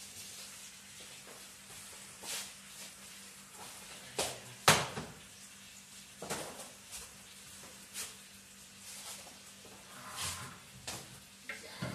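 Scattered knocks and clatter of cookware and utensils being handled, one every second or two, the loudest about five seconds in, over a faint steady hum.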